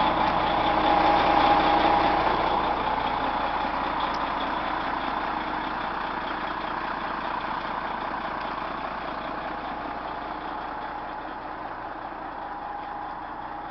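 Rear-mounted diesel engine of an MCI 102DL3 coach idling steadily, growing gradually fainter as the listener walks from the rear wheels toward the front of the bus.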